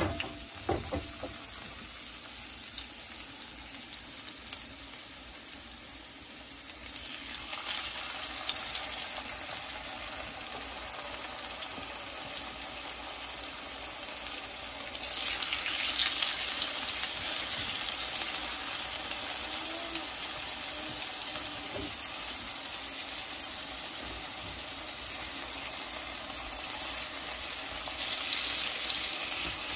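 Raw chicken breasts sizzling in hot oil in a frying pan, a steady hiss that gets louder about seven seconds in and again about fifteen seconds in. A single sharp knock right at the start.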